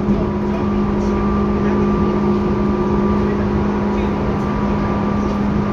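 Tobu 10030 series electric train running at a steady pace, heard from inside the car above its line breaker: an even rumble with several steady hums that hold their pitch.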